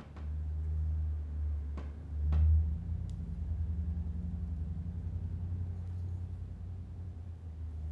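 A deep, low rumble that swells about two seconds in and then carries on as a fast, even flutter, with a few faint clicks near the start.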